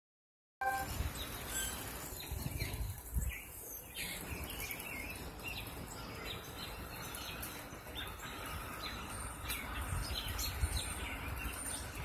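A flock of American robins giving many short, high chirps and call notes, overlapping and scattered through the whole stretch, over a low rumble.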